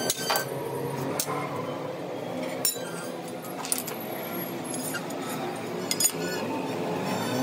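Stainless steel square tubes clinking: a hammer tapping the steel and tubes knocking together on a concrete floor, a handful of sharp ringing strikes at irregular intervals over a steady hum.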